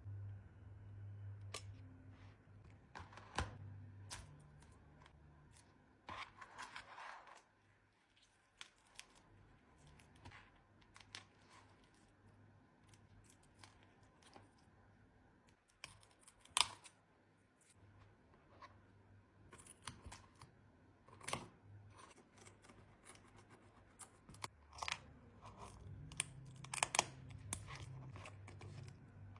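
Scattered small clicks, taps and short scrapes of hand tools working the cracked back glass off an iPhone 15 Pro Max, over a faint low hum.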